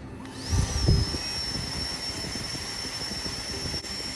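A steady jet of pressurised gas hissing from a nozzle, with a high whistle that rises at the start and then holds steady. A few low thumps come in the first second.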